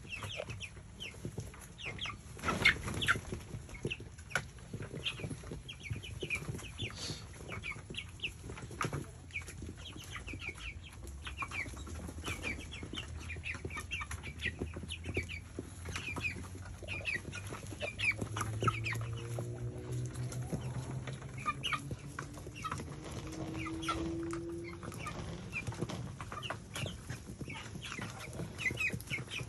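A flock of young chickens peeping and chirping, many short high calls overlapping without a break, with a few sharp knocks about three seconds in.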